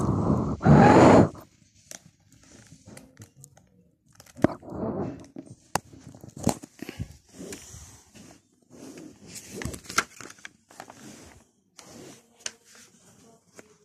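Handling noise from a phone being gripped and moved by hand: loud rubbing and scraping on the microphone for about the first second and a half, then scattered knocks, clicks and rustles.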